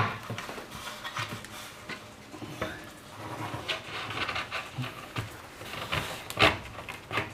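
Plywood baseboard trim being pushed and worked into place against the wall, wood scraping and knocking in a tight fit, with a sharper knock near the end.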